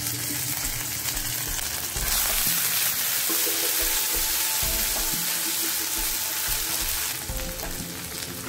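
Chana dal, garlic, curry leaves and grated ginger sizzling in hot oil in a pan while a spatula stirs them. The sizzle grows louder about two seconds in and eases off near the end.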